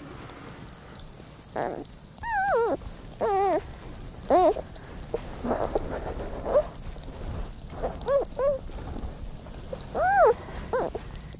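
Giant panda calling: a string of short, pitched bleats that rise and then fall in pitch, some with a quaver, repeated at irregular intervals.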